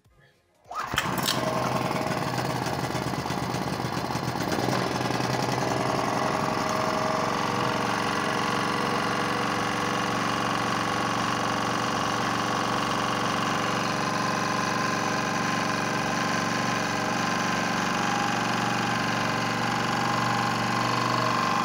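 Senwei SV2200 gasoline generator's single-cylinder engine starting about a second in, then running steadily. It runs but gives no power at its panel, a fault the owner suspects is a failed alternator capacitor.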